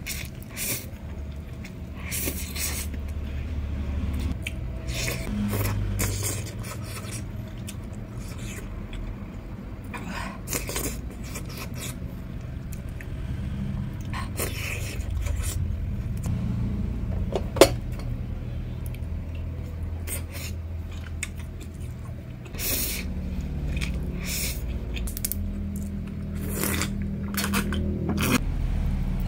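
Close-up eating sounds: instant noodles slurped, then chewing and mouth smacks, with chopsticks and a spoon clicking against bowls, and one sharp click a bit past halfway. A steady low rumble lies underneath, and gulps of a drink come near the end.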